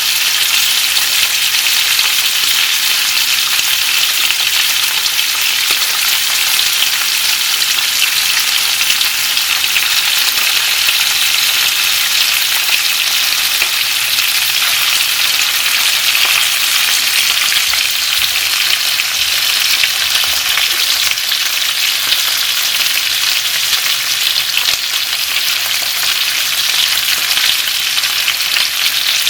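Flounder frying in hot oil in a pan: a steady, dense sizzle and crackle that keeps up without a break.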